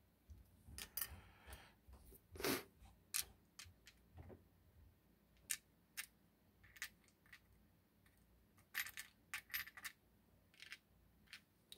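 Irregular small metallic clicks and light clinks of Abloy Exec lock discs being picked up and set down with tweezers on a disc tray, a few ringing briefly, with a quick cluster of clicks about nine seconds in.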